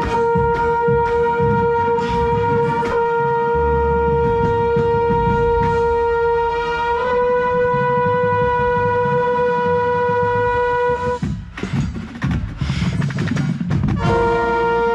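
A drum corps brass line plays a long held note, with a mellophone right at the microphone, over drum and percussion hits. The note steps up slightly about seven seconds in and breaks off about eleven seconds in, leaving a few seconds of percussion. The horns come back in near the end.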